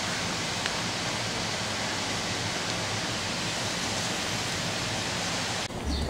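A steady, even rushing noise that cuts off suddenly near the end, where a low rumble begins.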